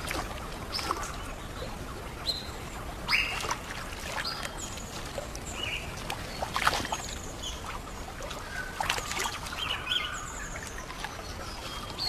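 Outdoor river ambience: scattered short, high chirping calls over a steady hiss of water, with a few sharp splashes or knocks, the loudest about three and six and a half seconds in.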